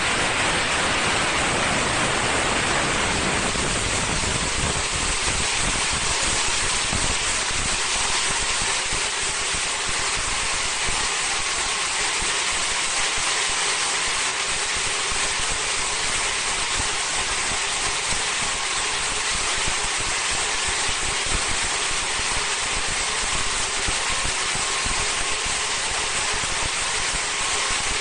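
High-speed film slitting and rewinding machine running steadily: an even rushing hiss with faint steady whining tones from the machine.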